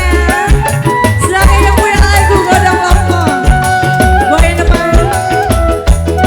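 Live band music in dangdut style: a heavy, regular bass beat under a sliding melody line, with a rattling percussion part on top.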